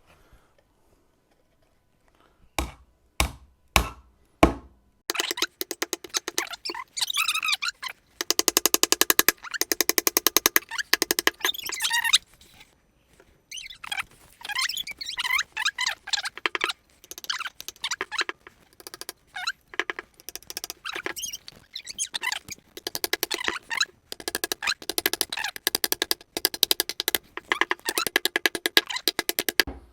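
Hammer striking a nail into the wood of a small birdhouse: four separate knocks about half a second apart. After that comes a long, dense run of rapid clicking mixed with high, squeaky pitched sounds.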